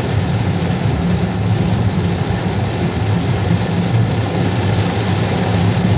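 Heavy rain hitting a moving car's roof and windscreen, heard from inside the cabin, over the steady low hum of the engine and tyres on the wet road.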